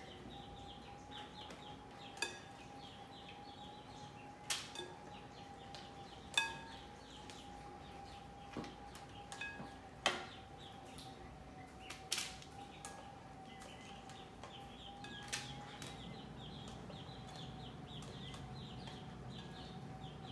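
Serving spoons clinking against a glass mixing bowl while vegetables are scooped out and dropped onto a parchment-lined sheet pan: about half a dozen sharp clinks spread apart, the loudest about ten seconds in, over a faint steady hum.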